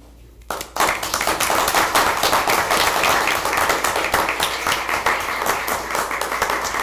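A small audience applauding: a burst of many hands clapping that starts about half a second in and holds steady, thinning out just at the end.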